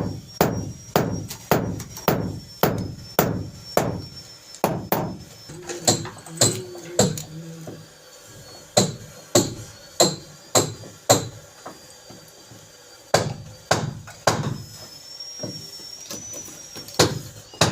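Hammer blows at a steady pace of about two a second, with two short pauses partway through.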